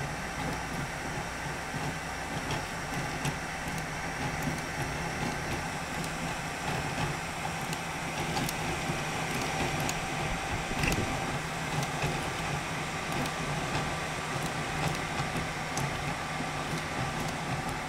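FDM 3D printer at work: a steady whirring hum from its fans and stepper motors, with several held tones and scattered faint clicks as the print head moves.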